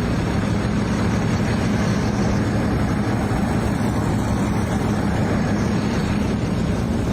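An engine running steadily: a constant low hum under a steady rushing noise.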